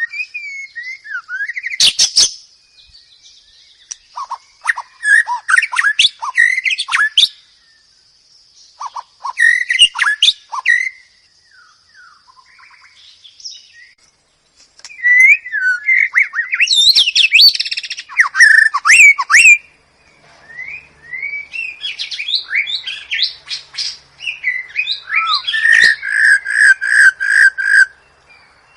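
White-rumped shama (murai batu) singing: varied whistled and chattering phrases in bursts separated by short pauses, ending in a run of about six evenly repeated notes near the end. A thin steady high tone runs under the first half.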